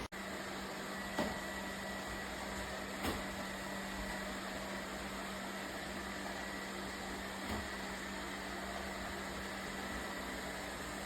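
Robot vacuum cleaner running: a steady whirring hum with a constant low drone and a faint high whine, broken by three light knocks about one, three and seven and a half seconds in.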